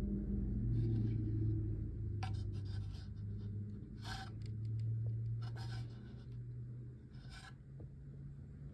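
Short scraping and rubbing sounds, four brief bursts a second or two apart, over a low steady hum.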